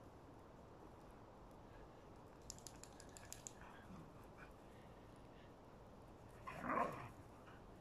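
Distant dogs play-fighting, mostly quiet, with a few faint ticks around the third second and one short dog vocalization about six and a half seconds in.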